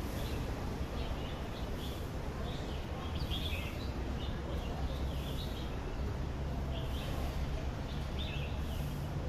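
Outdoor background noise: a steady low rumble with short, high bird chirps coming on and off.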